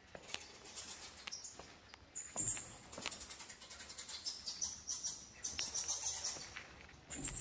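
Footsteps going down wooden stair treads, with a heavier step about two and a half seconds in and another near the end. Rapid high-pitched chirping clicks run over them.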